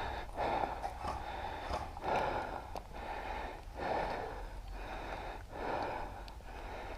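A person breathing hard close to the microphone, with a heavy breath about every two seconds.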